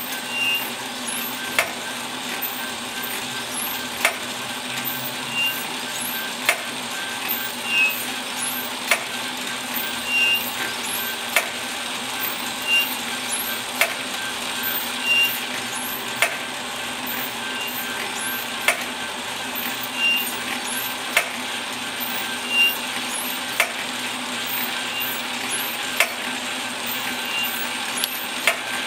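Toy steam engine driving belt-powered tin workshop models: a steady hiss with a sharp click repeating about every 1.2 seconds as the mechanism turns.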